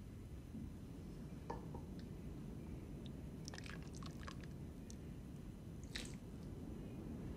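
Pot of seafood broth simmering: a low steady rumble with scattered faint wet pops and clicks, bunched together around the middle.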